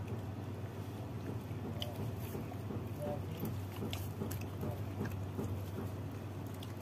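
People eating with their hands from a shared metal plate: flatbread being torn, faint chewing and small clicks, over a steady low hum.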